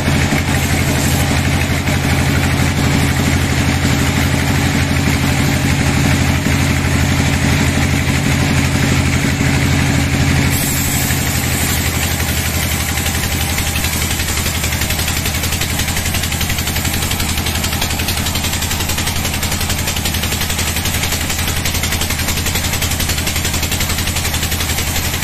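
Log band sawmill running, its band saw blade cutting lengthwise through a teak log: a steady machine hum under the noise of the cut. About ten seconds in the sound changes abruptly, the low hum dropping and a brighter, hissier sawing noise taking over.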